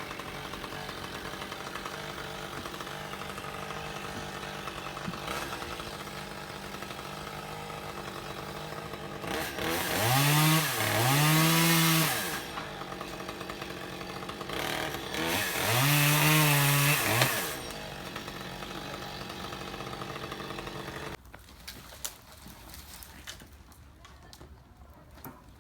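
A two-stroke chainsaw idles steadily and is revved hard twice, each time for two to three seconds. It shuts off about twenty-one seconds in.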